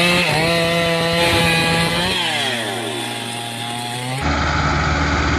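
Chainsaw running at high revs while cutting a log; about two seconds in the revs fall away to a lower pitch. Near the end the sound switches abruptly to a lower, steady heavy engine.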